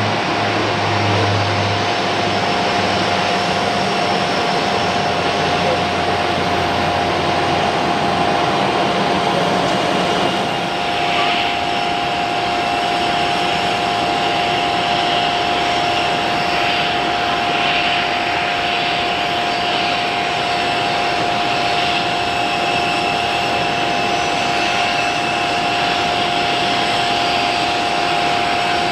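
Airbus A320-family airliner jet engines running steadily, a constant high whine over a broad rushing noise. A low rumble in the first third fades out.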